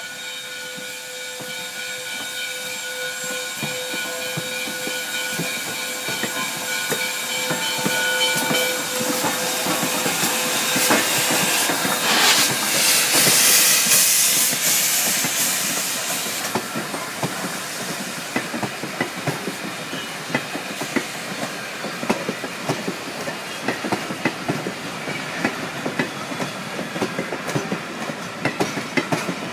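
A steam train passing: a whistle sounds a steady chord for the first eight or nine seconds, a loud hiss of steam swells to a peak about twelve to sixteen seconds in, then the clickety-clack of wheels over rail joints runs on as the cars roll by.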